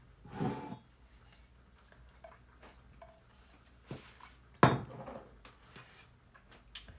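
Kitchen clatter of dishes and utensils being moved about: a short rustle at the start, a few small clinks, and one sharp loud clank about two-thirds of the way through.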